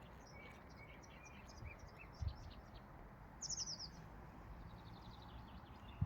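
Small songbirds chirping and calling, including a quick run of about five high, falling notes midway and a soft rapid trill after it. There is also a soft low thump about two seconds in.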